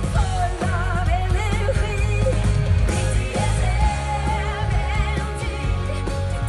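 Live pop concert: a woman sings into a microphone with vibrato over a full band with a strong, steady bass, heard through the venue's PA from among the audience.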